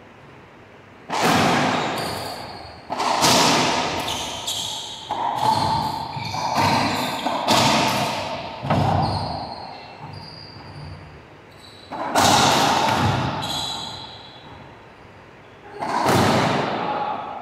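Racquetball rally: sharp, echoing pops of the ball being struck by racquets and rebounding off the court walls. A quick run of hits comes over the first nine seconds or so, then two single hits a few seconds apart.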